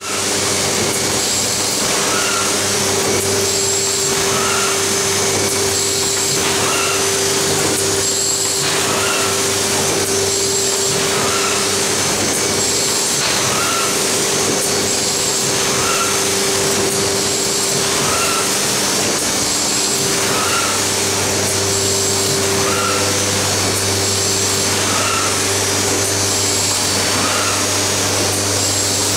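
Kolbus DA 240 hardcover casemaker running in production: a steady, loud machine noise with a constant hum and tone, and a faint repeating stroke about every second and a half as it cycles through cases.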